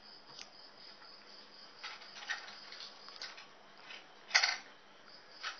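Quiet room tone with a faint steady hum and hiss, broken by a few brief soft handling noises, the loudest about four and a half seconds in.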